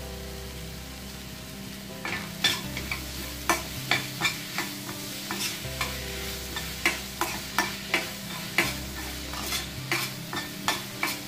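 A metal spoon stirring and scraping vegetables around a stainless steel pan: from about two seconds in, frequent sharp clinks against the pan over a steady sizzle of vegetables frying in oil.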